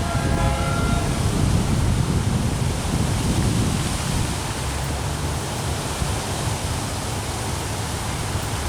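Commuter train passing at speed: a steady rumble from the wheels and rails, with wind buffeting the microphone. A brief pitched tone sounds in the first second.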